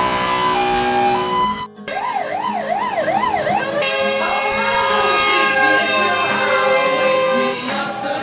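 Fire engine siren over background music: after a brief drop-out about two seconds in, the siren sweeps quickly up and down for a couple of seconds, then changes to slower rising and falling glides.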